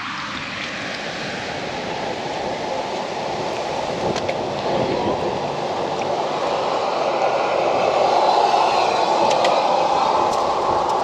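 Steady wind rushing over the microphone, slowly growing louder through the middle and late part, with a few faint clicks of a plastic spatula against a foil-lined pan.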